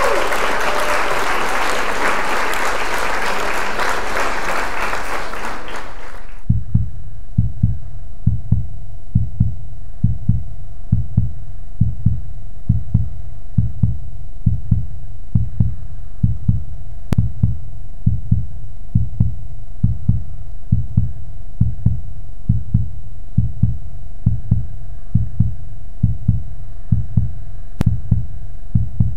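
A loud, even rushing noise cuts off suddenly about six seconds in. It gives way to a slow, regular low thumping like a heartbeat, about two thumps a second, over a faint steady tone.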